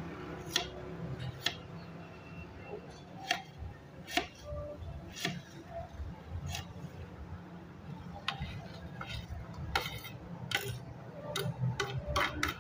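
Kitchen knife slicing a red onion on a ceramic plate, the blade clicking sharply against the plate roughly once a second. Near the end the knife scrapes and clinks against the plate as the slices are pushed off into a bowl.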